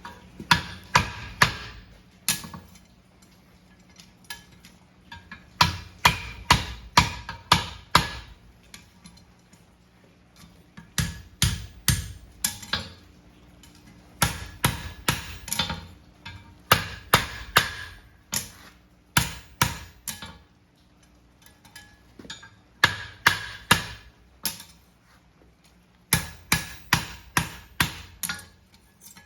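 Hammer blows ringing on a steel horseshoe on an anvil, struck in bursts of several quick blows with short pauses between, as the farrier reshapes the shoe after drawing its toe clip.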